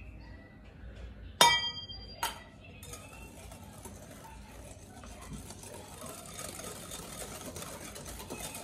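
Two ringing clinks of metal against a glass mixing bowl, about a second and a half in and again a second later. A wire whisk then beats a wet batter in the glass bowl, a steady fast scraping and clicking.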